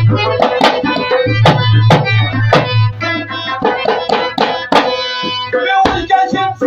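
Pashai folk music played live: a hand-beaten frame drum keeps a quick, steady rhythm over the held reedy drone of a harmonium. Near the end a man's singing voice comes in.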